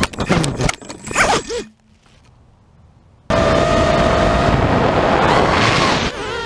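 A quadcopter's motors and propellers, heard through its onboard camera, buzz and clatter as it strikes tree branches, the motor pitch lurching up and down before cutting out about a second and a half in. After a quiet gap of a second or two, a steady high motor whine comes back suddenly and rises in pitch near the end.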